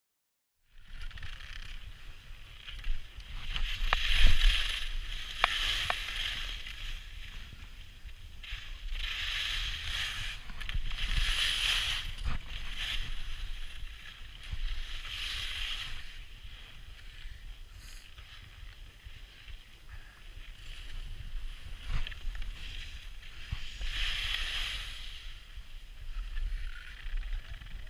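Wind buffeting an action camera's microphone, with repeated hissing swells of skis scraping over hard snow and a few sharp clicks, starting just under a second in.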